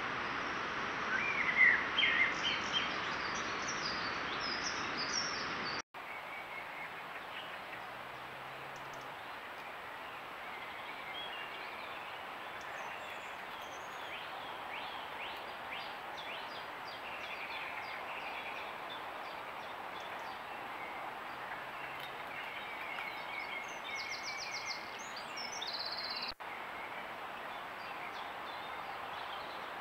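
Woodland birds singing and calling over the steady hiss of a trail camera's microphone, with a few louder calls in the first few seconds. The sound cuts out for a moment about six seconds in and again near the end, where one camera clip gives way to the next.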